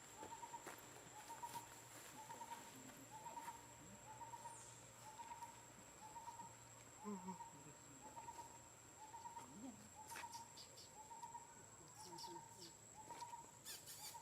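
Faint, evenly repeated short calls, about one and a half a second, over a steady faint high whine; a few faint clicks near the end.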